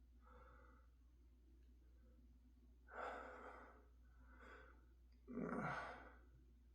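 A man's quiet, heavy breaths and gasps while his nostril is being tickled: four breaths, the second and fourth, about three and five and a half seconds in, louder than the others. It is the build-up before a sneeze, and no sneeze comes.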